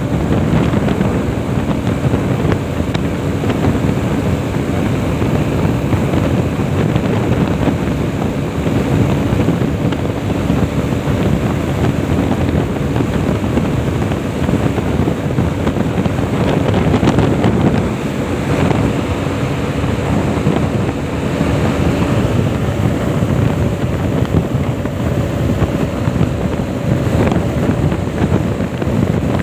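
Heavy wind buffeting on the microphone of a sport motorcycle riding at highway speed, with the bike's engine running steadily underneath.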